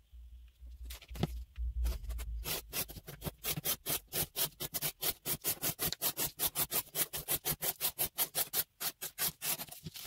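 Spyderco Manix 2 Lightweight folding knife's CPM REX45 blade slicing through corrugated cardboard in quick, repeated strokes, about five a second, each a short rasping cut.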